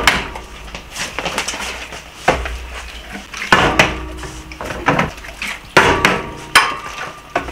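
A partly filled plastic bottle being flipped and knocking down onto a glass tabletop: several sharp knocks at uneven intervals, with a fork clinking against a plate.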